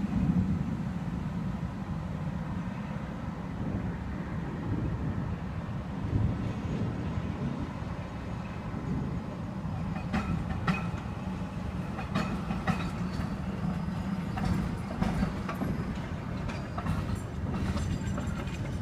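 A rail vehicle passing with a steady low rumble. From about ten seconds in come repeated sharp clicks and short squeals from its wheels on the track.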